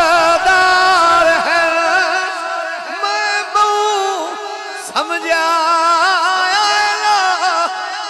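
A man singing a line of a Punjabi naat, drawing a word out in a long wavering melismatic phrase, with a steady held tone beneath it.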